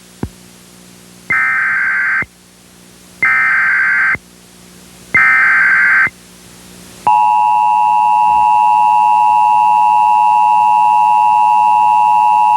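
Sage EAS encoder sending an Emergency Alert System header: three one-second bursts of the screechy SAME data signal, then about seven seconds in the steady two-tone EAS attention signal starts and holds. The header opens a severe thunderstorm warning.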